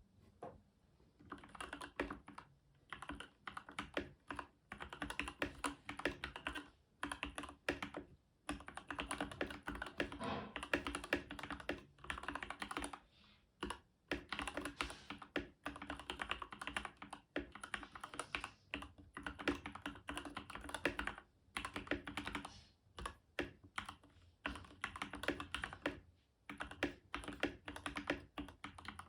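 Typing on a Keychron K10 mechanical keyboard with Gateron Red linear switches: fast, dense runs of key clacks, broken every few seconds by short pauses.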